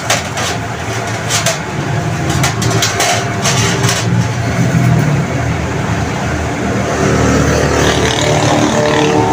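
A motor vehicle engine running close by, a steady low drone that takes on a pitched hum about seven seconds in. A few light metallic clicks come in the first four seconds.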